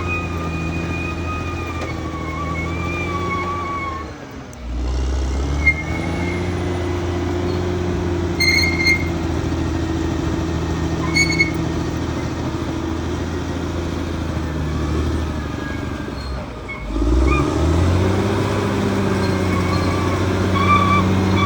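Caterpillar D6R XL bulldozer's diesel engine running steadily. Its note drops and recovers twice, about four and a half and seventeen seconds in, as it pulls down under load. Two short high squeaks come a few seconds apart in the middle.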